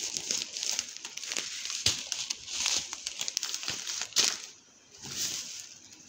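Plastic packaging crinkling and rustling as grocery items (snack wrappers and a bag of rice) are pulled from a shopping bag and set down on a table, with a few sharper crackles near 2 and 4 seconds in.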